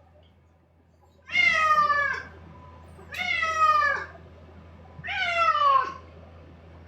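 A domestic cat meowing three times, each meow about a second long and falling in pitch, from inside a pet drying box after a bath. A low steady hum runs underneath.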